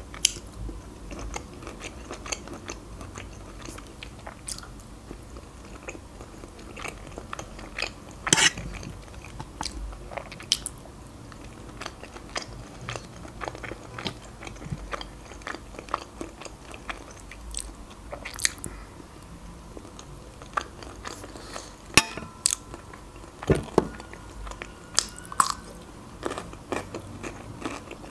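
Close-miked chewing and mouth sounds of someone eating creamy pasta shells, with many short sharp clicks scattered through, as the fork works the pan.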